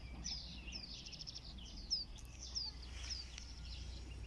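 Small birds chirping and singing: a run of short, curving, falling chirps, with a quick trill about a second in, over a low steady rumble.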